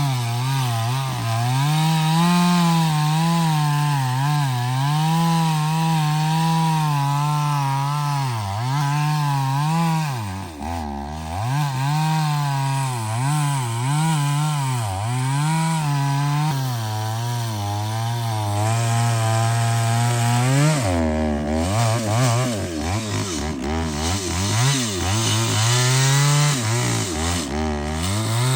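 Two-stroke chainsaw cutting into a large hardwood trunk. Its engine note wavers steadily, then drops deeply as it bogs under load about ten seconds in and several more times in the last third.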